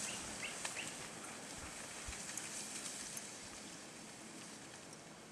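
A dog sled team pulling away along a snowy trail: the noise of sled and dogs fades steadily as the team moves off.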